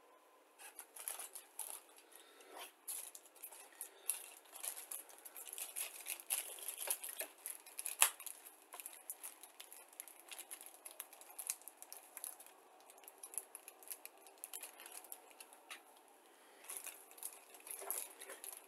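Clear plastic bags holding plastic model-kit sprues crinkling and crackling as they are handled, in irregular bursts, with the sharpest crackle about eight seconds in.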